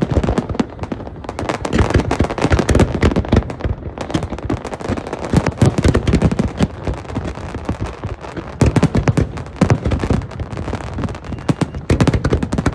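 Fireworks display: a dense, continuous barrage of bangs and crackling, with heavier booms clustered a few seconds in and again past halfway.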